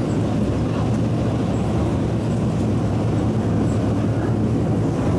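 Cabin noise inside an East Rail Line MLR (Metro Cammell) electric multiple unit running along the line: a steady, even rumble of motors and wheels on rail. The beat (拍子) of its traction motors stands out because one motor is faulty.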